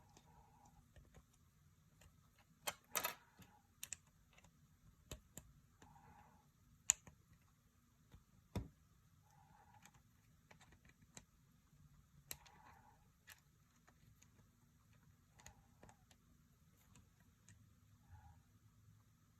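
Faint, scattered clicks, taps and small snaps of plastic toy capsules and wrappers being handled and opened by hand. There is a short cluster of clicks about three seconds in and the sharpest snap about seven seconds in.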